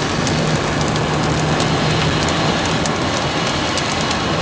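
Rain falling steadily, with individual drops ticking sharply, over a steady low hum.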